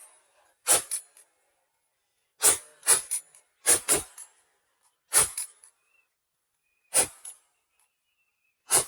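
Shotgun shots fired at ducks in quick succession, about eight in all, several coming in pairs about half a second apart, each a sharp blast with a short echo after it.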